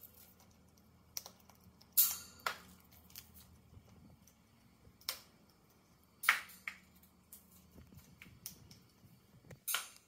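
A parrot cracking kernels off a dried corn cob with its beak: irregular dry crunches and clicks, a handful of louder cracks among many light ticks.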